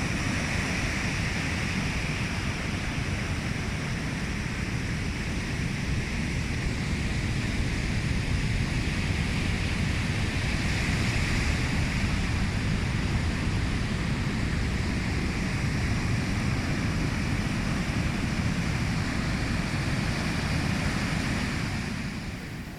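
Surf washing onto a beach in a steady, slowly swelling rush, with wind rumbling on the microphone.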